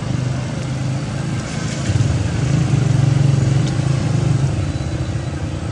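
A motor engine running steadily with a low hum, louder for a couple of seconds in the middle.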